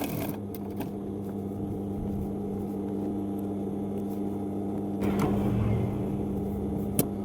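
Steady low mechanical hum, with a short rustling stretch about five seconds in and a single sharp click near the end.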